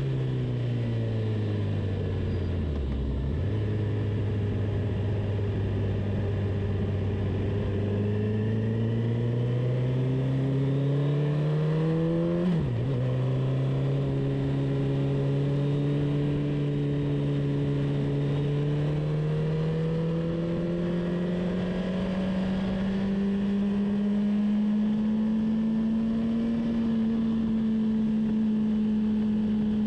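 Engine of a track-day vehicle heard onboard, with steady wind and road noise underneath. The engine slows and shifts down, holds low revs for a few seconds, then pulls up through the revs to a sharp upshift about halfway. After that it climbs slowly under light throttle and levels off near the end.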